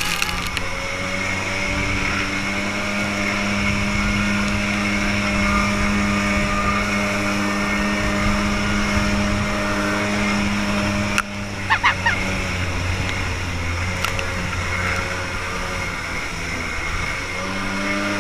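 Small jet boat's engine running at speed, a steady engine note under rushing wind and water spray. About eleven seconds in come a few sharp knocks, and the engine note is weaker for a while before picking up again near the end.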